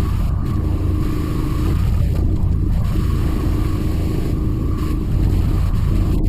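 2002 Jeep Grand Cherokee's 4.7 V8 idling steadily, with Blue Devil head gasket sealer circulating through its coolant to seal a head gasket that the owner suspects is leaking.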